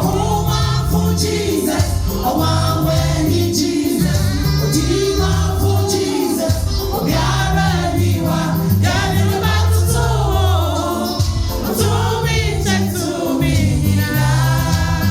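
Live gospel music: several voices singing together over a band with a steady, loud bass line and drums.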